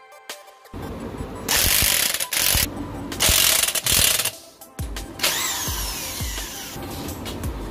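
Impact wrench running in two loud bursts of about a second each, driving home the lower mounting bolt of a motorcycle's rear shock absorber, followed by a falling whine near the end.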